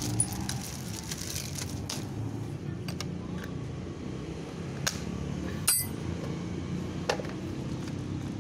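A handful of sharp plastic clicks and knocks, the loudest about two-thirds of the way through, as a screwdriver and hands work the plastic top cover off a New West 588 chainsaw, whose engine is not running; a steady low background rumble underneath.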